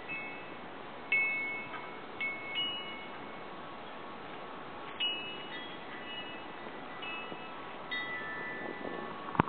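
Wind chimes ringing: several clear high tones of different pitches, struck every second or so and each fading quickly, over a steady background hiss. A sharp click near the end.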